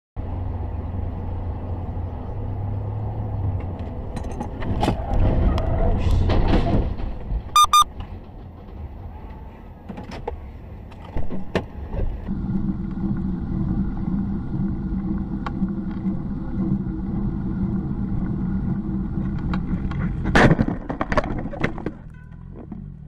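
Dash-cam sound of cars on the road: engine and road noise with several sharp knocks and thuds, a short double beep, then a steady engine hum, and more knocks near the end.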